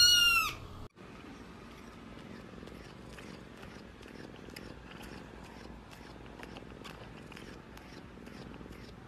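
A short synthetic transition tone that bends up and then down, then a domestic cat purring steadily and softly close to the microphone.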